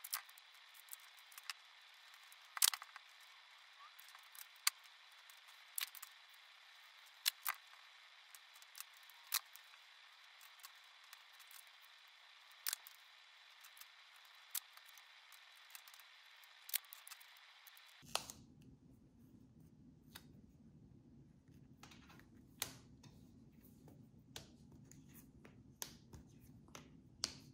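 Quiet handling of duct tape and cardstock fins, with scissors snipping the tape: scattered sharp snips and clicks every second or two over a faint steady hiss. About two-thirds of the way through, the hiss gives way to a low hum.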